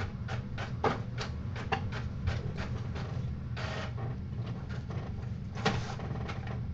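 A home printer printing a page: a run of short mechanical whirs and clicks, about three a second, with a longer whir a little past the middle and a sharper click near the end.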